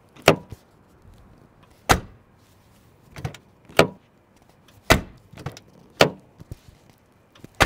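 Rear door of a 2009 Mercury Grand Marquis worked over and over, opened and shut: a string of about eight sharp latching clicks and clunks, roughly one every second or so, the solid mechanical click of a heavy Panther-platform door.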